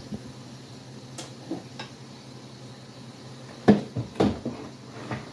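Kitchen clatter: a few light clicks, then two sharp knocks about half a second apart a little past halfway, as dishes and cupboards are handled over a low steady hum.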